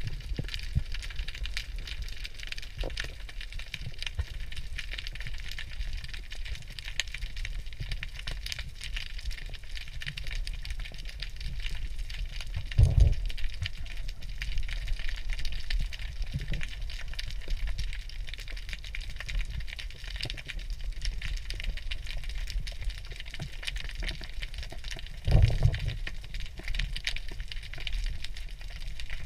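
Underwater ambience on a rocky reef: a constant dense crackle of snapping shrimp over a low water rumble. Two brief low thumps stand out, one about halfway and one near the end.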